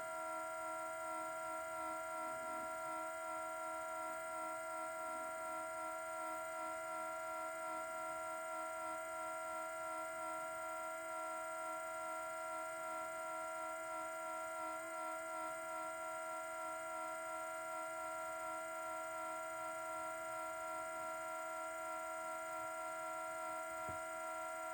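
Steady electric hum with several fixed pitches from a parked car that has not been started, sounding in freezing cold; the owner was told it has something to do with the exhaust system.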